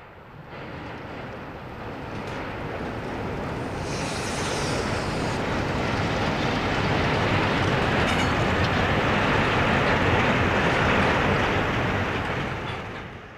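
Diesel freight locomotives passing close by, engines running and wheels rolling on the rails. The sound grows steadily louder as they approach, is loudest about ten seconds in, and falls away near the end.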